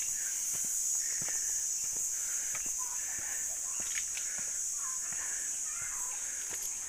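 Footsteps on stone steps and a cobbled path, with faint bird calls and a steady high hiss in the background.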